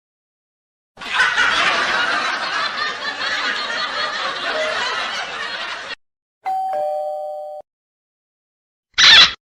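A string of separate sound effects: about five seconds of dense noise, then a two-note falling ding-dong doorbell chime, then a short loud burst near the end.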